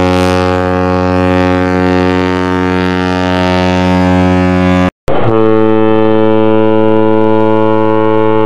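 Cruise ship horn of the MS Costa Deliziosa sounding one long, steady blast that cuts off about five seconds in. After a brief gap, the MS Costa Concordia's horn starts a second long, steady blast with a different pitch.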